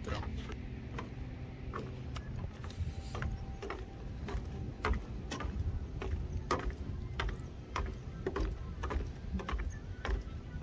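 Footsteps on a paved seafront walkway, a run of light irregular clicks about two a second, over a steady low rumble.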